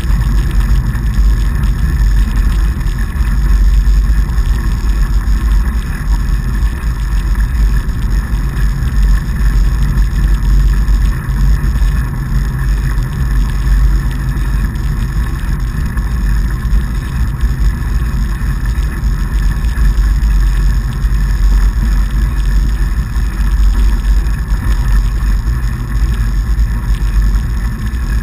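Steady loud rumble of a fatbike riding over packed snow, picked up by a handlebar-mounted action camera: the wide tyres rolling and the mount's vibration and wind noise on the microphone.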